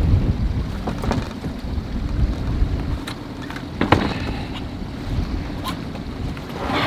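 Wind buffeting the microphone on an open boat, with a few knocks and scrapes as a wire lobster trap is worked across the boat's gunwale. The sharpest knock comes about four seconds in.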